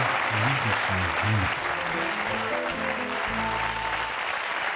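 Studio audience applauding over a short instrumental music sting of quick plucked-sounding notes. The music stops about four seconds in and the applause carries on.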